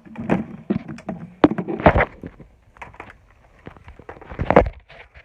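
Irregular knocks, clicks and thumps of objects being handled in a kitchen. The loudest thumps come about two seconds in and again near the end.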